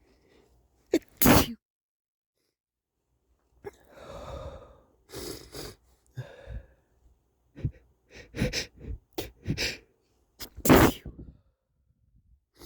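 A man sneezing wet and stuffy-nosed: one sharp sneeze about a second in and another near the end, with a run of short, noisy breaths between them.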